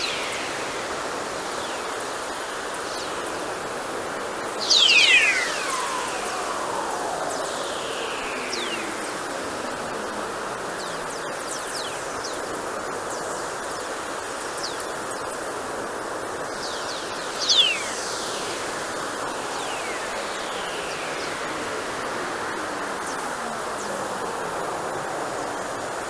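Whistlers in wideband radio data from the Polar spacecraft's Plasma Wave Instrument, played as sound: a series of whistling tones that each fall steeply in pitch over a second or two, over a steady hiss. The two loudest come about five seconds in and at about seventeen seconds. Such whistlers may come from lightning discharges, whose signals travel along Earth's magnetic field lines.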